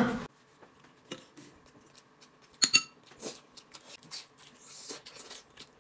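Quiet tableware and eating sounds: a single sharp clink of dishware that rings briefly about two and a half seconds in, then soft scattered clicks and smacks as a pig trotter is bitten and chewed.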